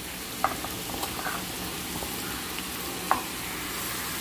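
Marinated chicken pieces sizzling as they go into hot oil and fried onion-tomato masala in a kadai, a steady frying hiss. A few short clicks, about half a second, a second and three seconds in.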